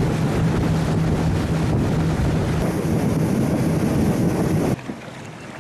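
Tour motorboat's engine running at speed with a steady low hum, mixed with wind buffeting the microphone and rushing water. Near the end the sound drops suddenly to a much quieter wash of wind and water.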